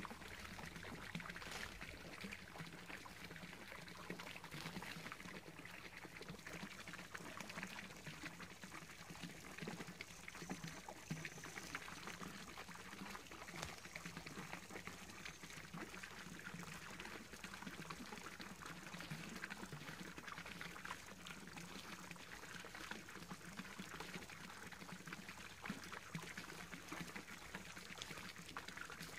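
Small garden pond fountain splashing steadily, its jet of water falling back onto the pond surface.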